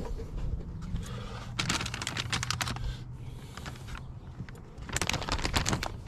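A plastic bag full of plastic Easter eggs being handled: rapid crinkling and clicking in two flurries, about a second and a half in and again near the end.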